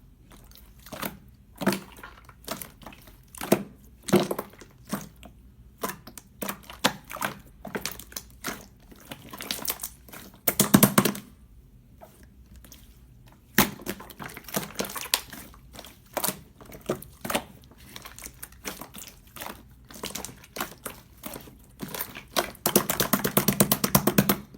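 Yellow clear slime being squeezed, folded and stretched by hand, making sticky clicks and pops. Two longer runs of rapid crackling pops come about ten seconds in and near the end.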